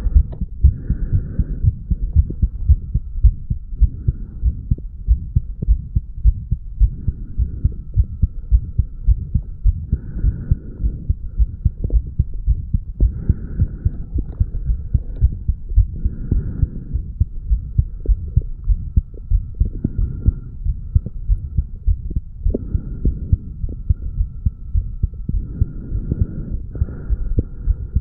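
A man's heartbeat recorded at the mitral valve area of the chest after weight training: a steady, even rhythm of low thuds that runs without a break.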